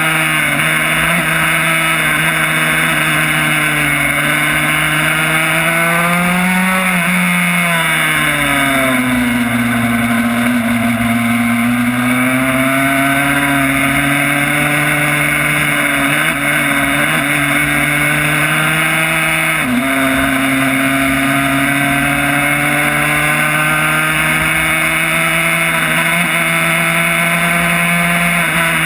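Yamaha YZ85 two-stroke single-cylinder engine in a Honda RS125 road racer running hard at speed on track. The engine note climbs to a peak about seven seconds in, falls steeply, then pulls steadily back up, with a brief break in the note near twenty seconds, over a constant rush of wind.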